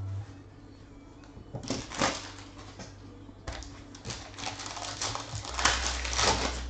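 Foil wrapper of a trading-card pack crinkling and tearing as it is opened by hand: a short burst of crackles about a second and a half in, then a busier run of crackles through the second half.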